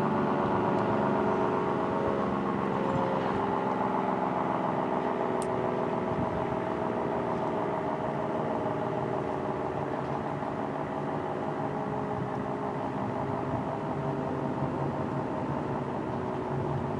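ACA Screamer S-10 dual-tone tornado siren winding down, its several tones sliding slowly lower in pitch as it fades.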